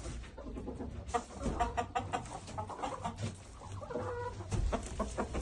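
Chickens clucking in a coop: short, scattered clucks, with a few small knocks.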